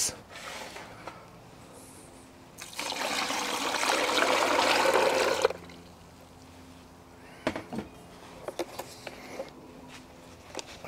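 Water poured from a jug into a plastic brining bucket over a turkey: a steady splashing pour lasting about three seconds. A few light knocks follow near the end.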